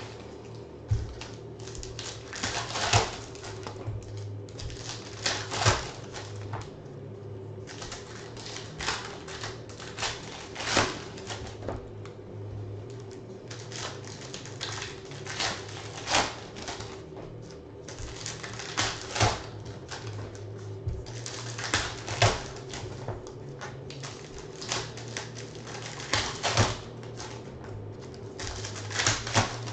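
Trading cards and foil card packs being handled on a table: irregular sharp clicks and taps, some in quick clusters, as packs are opened and cards are set down on stacks. A steady low hum runs beneath.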